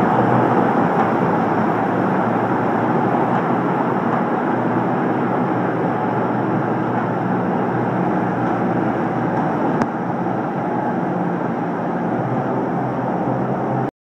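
Fiat 70-90 tractor's four-cylinder diesel running steadily while it moves a Strautmann FVW 120H feed wagon. The sound cuts off abruptly near the end.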